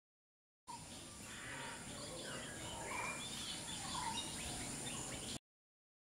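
Many wild birds chirping and calling at once, short overlapping calls over a steady high hiss. The sound starts abruptly under a second in and cuts off abruptly near the end.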